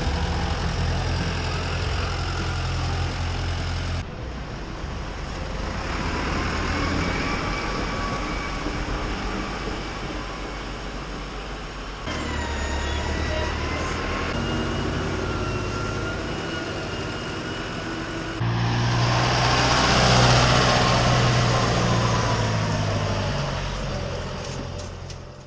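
Diesel tractor engines running, in several clips cut together: the sound changes abruptly about four, twelve and eighteen seconds in. A whine rises and falls in pitch in the middle stretches, and the loudest part comes near the end before a fade.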